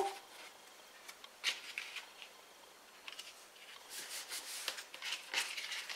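Faint rustling and scraping of cardstock being handled and pressed together by hand on a craft mat, a few scattered rustles at first and more near the end.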